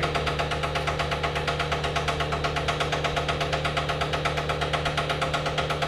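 Vacuum pump on a neon-tube processing manifold running steadily, with a fast, even pulse over a low hum.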